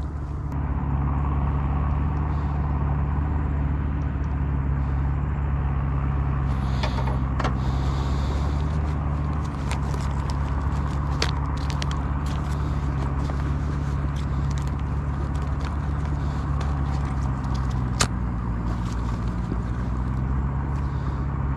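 Steady low drone of a motor running at constant speed, with scattered light clicks and one sharp click about eighteen seconds in.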